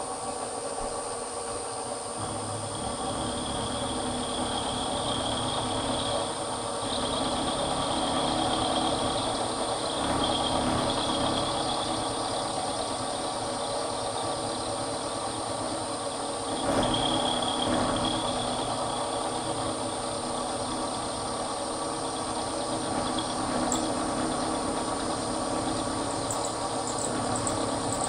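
Milling machine running with its end mill plunge-cutting the ends of a slot in a metal workpiece: a steady machine hum with a high cutting whine that comes and goes through the first half and returns briefly later.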